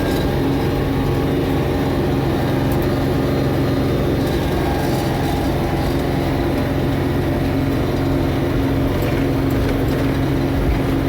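Tractor engine running steadily while pushing a snow plow, a constant drone heard from inside the cab.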